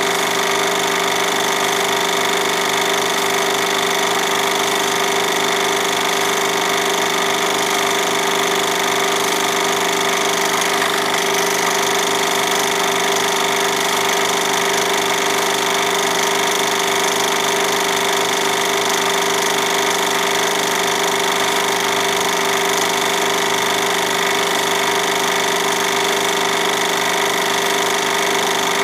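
Film projector running: a steady mechanical whir with a fast, even rattle.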